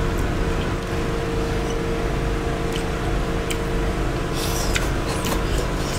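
A steady low background hum, with a few light clicks of chopsticks against ceramic bowls and soft eating sounds.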